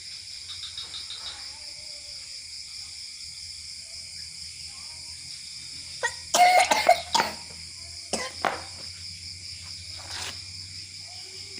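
A child coughing: a cluster of several coughs about six seconds in, two more around eight seconds, and a single cough near ten seconds.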